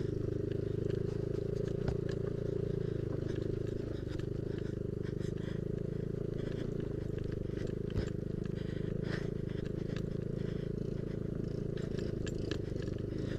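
Yamaha Aerox scooter engine running steadily at low speed over a rough off-road track, with light rattles and knocks from the bumpy ground.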